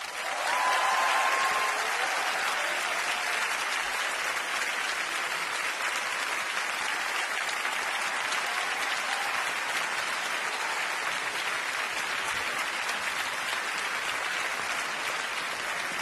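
Large concert-hall audience applauding steadily at the end of a piece.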